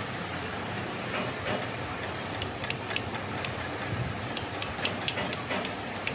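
Steel spool of an excavator's hydraulic main control valve being worked into its bore in the valve body: a run of about a dozen light metallic clicks and taps, starting a couple of seconds in, over a steady workshop hum.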